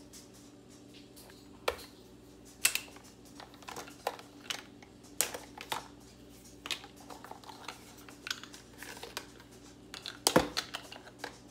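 Plastic Halloween skeleton being pulled apart by hand on a stone countertop: scattered clicks and knocks of the plastic joints and bones, with a loud cluster of clicks near the end.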